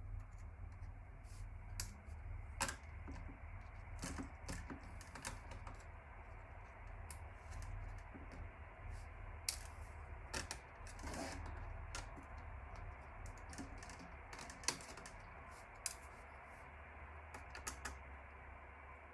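Scattered light clicks and knocks of hands and a screwdriver working on a desktop computer, parts and screws being handled, over a low steady hum.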